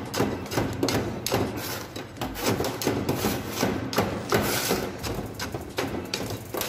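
Steel tamping rod stabbed repeatedly into fresh, stony concrete in a metal cube mould, a steady run of knocks about two to three a second, as the concrete layer is compacted for a test cube.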